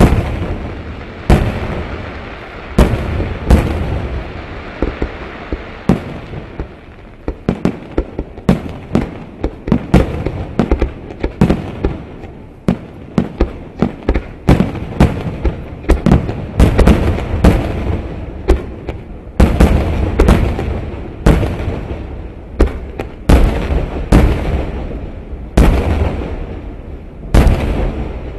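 Aerial fireworks shells bursting in quick succession: many loud booms, often several a second, over a continuous low rumble.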